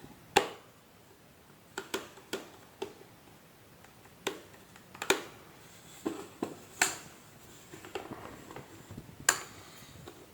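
Irregular sharp clicks and knocks of hard plastic vacuum cleaner parts and tools being handled and set down during reassembly. About a dozen taps, with the loudest just after the start, around five seconds in, around seven and just after nine seconds.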